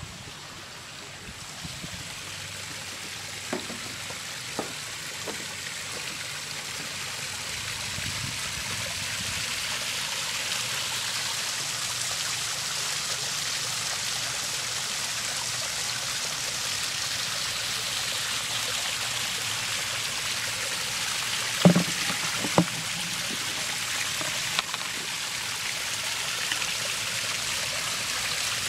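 Backyard pond waterfall splashing steadily into the pond. It grows louder over the first ten seconds or so. A few short knocks sound over it, the two sharpest about three-quarters of the way through.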